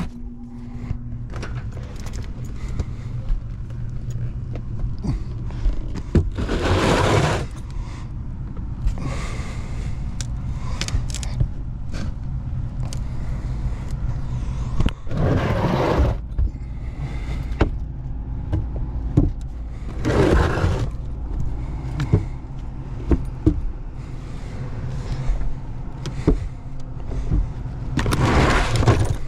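A steady low hum with scraping and rustling, louder in four bursts of about a second each, and scattered small clicks.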